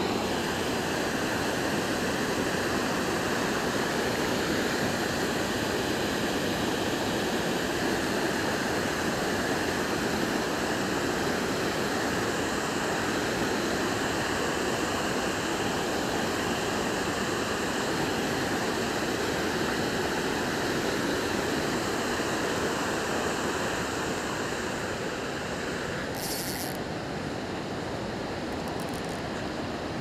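Steady rush of river water pouring over a low dam weir, with a brief hiss near the end.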